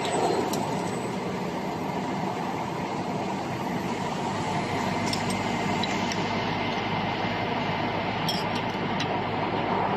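Spiral duct forming machine running with a steady mechanical drone and a faint hum, with a few light clicks near the middle and end.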